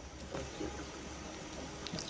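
Quiet stretch of low steady hum and faint background hiss, with a few soft clicks or rustles about a third of a second in and again near the end.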